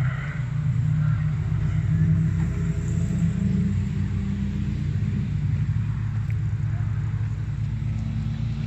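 A car engine running at low, steady revs: a low drone whose pitch lifts slightly a few seconds in and then holds.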